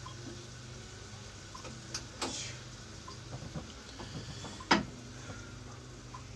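Kitchen handling noises: a couple of sharp clatters about two seconds in and one loud sharp knock about three-quarters of the way through, over a steady low hum. A faint tick recurs about every second and a half.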